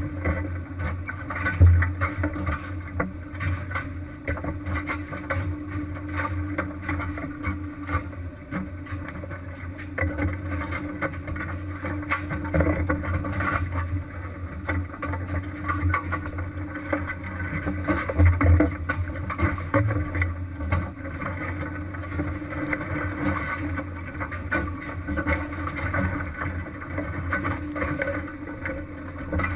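Fishing boat's engine running steadily, with clattering deck noise and a couple of louder thumps, one about two seconds in and one past the halfway point.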